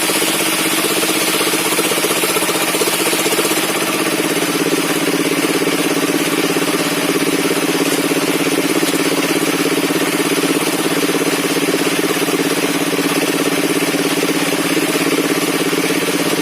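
Circular sawmill machine running steadily, its engine and saw drone holding one pitch, with the tone growing fuller about four seconds in.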